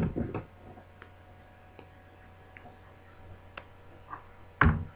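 Light scattered clicks and ticks of plastic laptop screen parts being handled, then one louder knock near the end.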